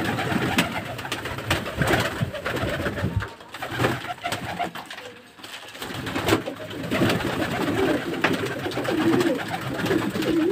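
Domestic pigeons cooing in a small enclosed loft, with wings flapping and clapping as birds take off and flutter, most in the first few seconds; the cooing runs on more steadily in the second half.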